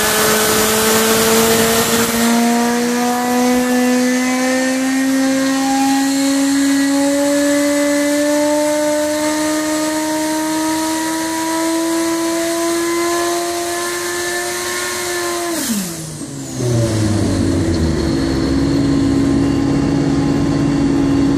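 Turbocharged Suzuki Hayabusa inline-four on an engine dyno making a full-power pull: the engine note climbs steadily in pitch for about fifteen seconds to over 9,000 rpm under boost. Then the throttle is shut, the revs fall away within about a second, and the engine settles to a steady low-speed run.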